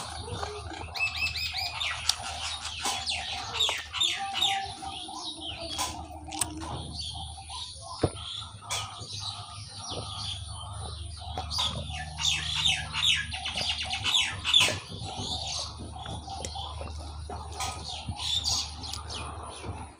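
Small birds chirping in quick repeated trills, with a few sharp clicks over a steady low hum.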